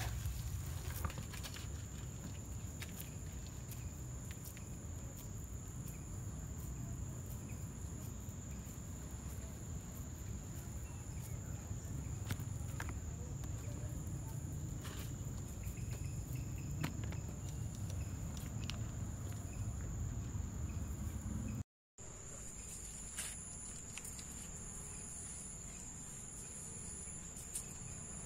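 Steady high-pitched insect chirring with scattered soft clicks and pats of hands working moist coconut dough in a clay pot. The sound cuts out for a moment about three-quarters of the way through.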